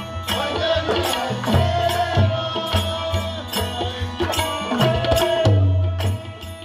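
Devotional bhajan music: a harmonium melody over tabla, whose deep bass strokes boom under the beat, with sharp metallic strokes of small hand cymbals keeping time.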